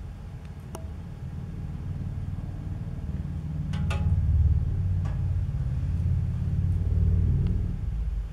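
A sleeping puppy's low rumbling growl while it dreams, swelling about four seconds in and easing off near the end, with a few faint clicks.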